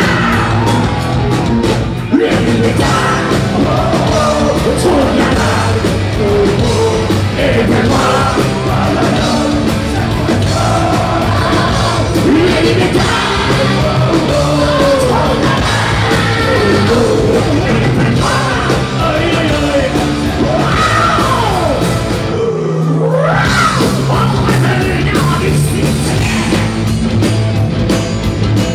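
Heavy rock band playing live and loud, with electric guitars, bass and drums, and a singer yelling and singing into the microphone. The music breaks off briefly about three-quarters of the way through, then comes straight back in.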